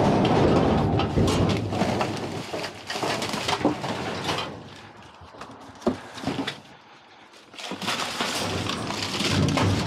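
Crumpled paper and plastic bags rustling, with knocks and rattles from white wire display baskets, as hands rummage through dumpster trash. It drops quieter for a few seconds past the middle, broken by a few sharp knocks, then the rustling picks up again near the end.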